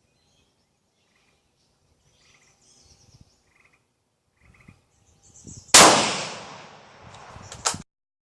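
A single rifle shot, very loud and sudden, with a long echo trailing away over about a second and a half. A sharp click follows about two seconds later, after a few seconds of faint knocks and handling sounds.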